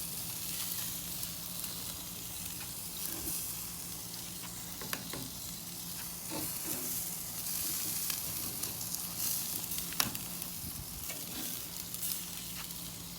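Steaks and sausages sizzling on a charcoal grill: a steady hiss with scattered small crackles and one sharper pop about ten seconds in.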